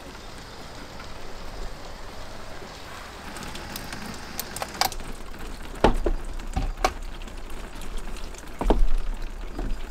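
Garden hose spray nozzle spraying water onto window glass, a steady hiss of water hitting the pane. In the second half come scattered clicks and a few heavier thumps.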